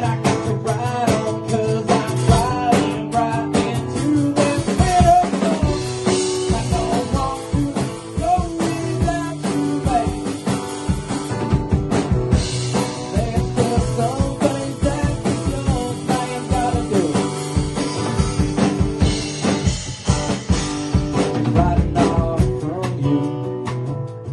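Live band playing a song: a strummed acoustic guitar over a drum kit, with singing.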